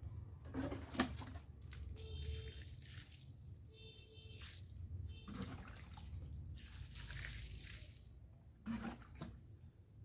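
Water scooped from a bucket with a long-handled ladle and poured out in uneven splashes, with a sharp knock about a second in.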